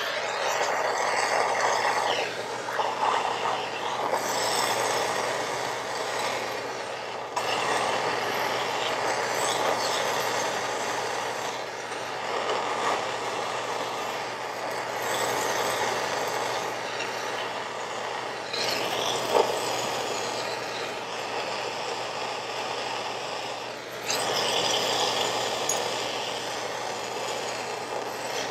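Hand-held soldering torch flame hissing steadily as it heats a copper tube joint on a low-lead brass valve before soldering, with a few small shifts in level as the flame is moved.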